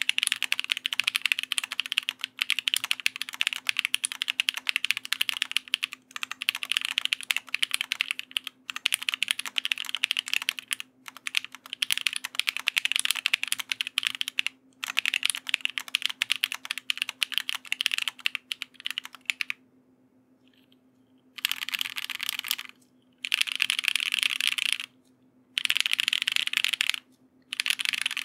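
Typing on a mechanical keyboard with Amethyst tactile switches, GMK keycaps and an undampened aluminium half-plate: fast, steady keystroke clacking. About twenty seconds in, after a brief pause, come four runs of dense rapid clatter, each about a second and a half long, with short gaps between them.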